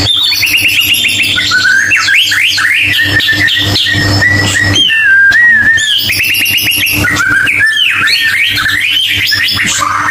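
White-rumped shama (murai batu) singing loudly: a fast, varied song of rising sweeps, rapid repeated notes, trills and held whistles. This is a lure song, meant to set a silent shama singing. A steady low hum runs underneath.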